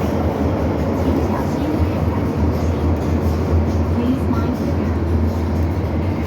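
MTR Island Line M-Train running between stations, a steady low rumble of the train in motion heard from inside the car.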